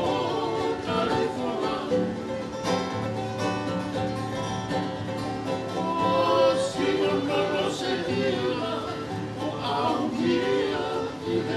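A group of men singing together to strummed acoustic guitars and a ukulele: a Tongan kava-club (kalapu) song, sung and played without a break.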